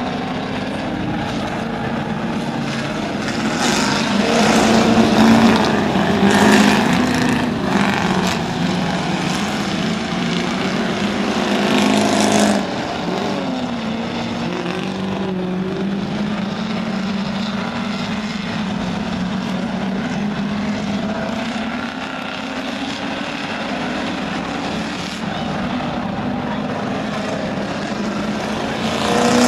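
A pack of Crown Victoria race cars running laps, their V8 engines droning together. The sound swells as cars pass close, about four to seven seconds in and again around twelve seconds, then drops off.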